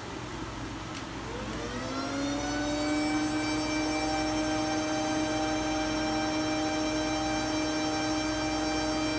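Cooling fan of a Fanuc CNC control powered off and on again during a power-cycling test. It winds down, there is a click about a second in, and it spins back up to run steadily at a constant pitch.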